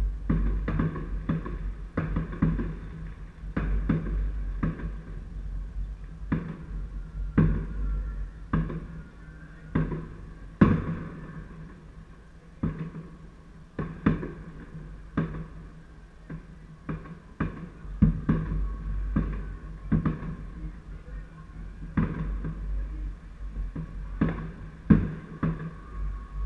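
Distant fireworks bursting: a long run of irregular bangs, roughly one or two a second, over a low rumble.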